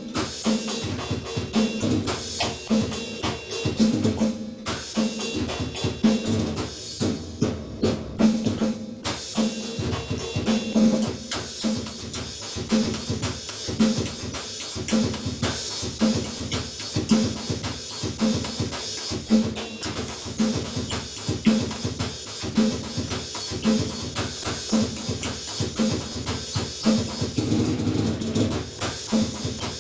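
A drum kit played by hand: regular kick-drum and snare thumps under cymbal strikes. About four to nine seconds in the playing thins to separate hits with short gaps, then becomes a busy, continuous groove with heavy cymbal work.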